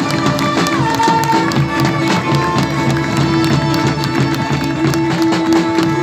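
Live folk band playing: bombo legüero drums and a drum kit keep a fast, steady beat with cymbal crashes, under acoustic guitar and long held sung notes.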